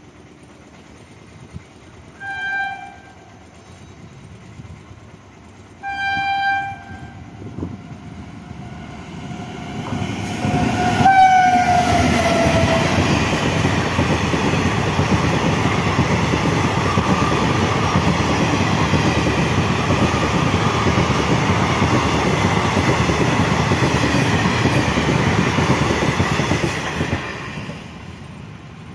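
WAG-9HC electric locomotive sounding its horn in two short blasts as it approaches, then a third, longer blast that drops in pitch as it passes. The passenger coaches follow, running loudly past on the rails for about fifteen seconds before the sound fades near the end.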